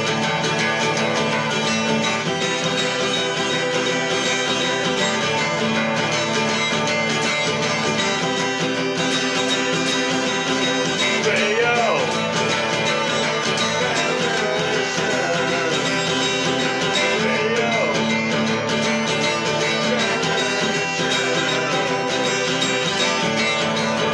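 Acoustic guitar strummed steadily with a pick, chords ringing throughout, with a man's voice singing along in places.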